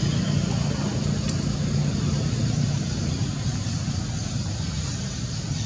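A steady low rumble with a hiss over it, like a motor or road traffic running nearby, with a faint tick about a second in.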